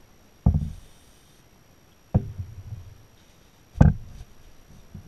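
Dull knocks of parts being handled on a wooden workbench, three of them about a second and a half apart, the last the loudest. A short hiss of aerosol spray follows just after the first knock.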